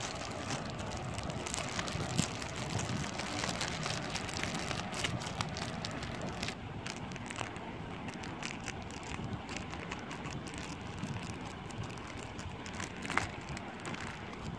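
Plastic parcel wrapping and packing tape crinkling and rustling as they are handled and cut with scissors: a steady crackly rustle with scattered sharp snips and clicks.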